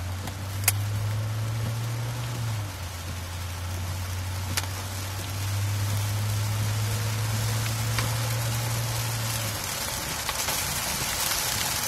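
Heavy rain falling steadily, with a low steady hum underneath that stops near the end and a few faint sharp clicks.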